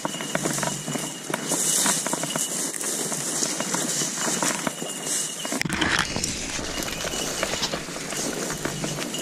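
Dry grass and brush rustling and crackling underfoot as someone walks through cover, with more low rumble from about halfway in.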